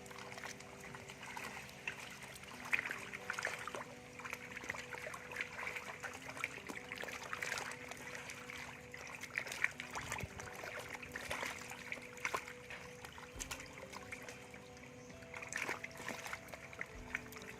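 Many small splashes and trickling water over background music of sustained, stepping notes.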